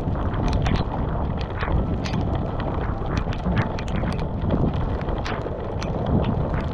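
Rainstorm squall: strong wind buffeting the camera microphone with a continuous low rumble, and irregular sharp ticks of raindrops striking close to the microphone.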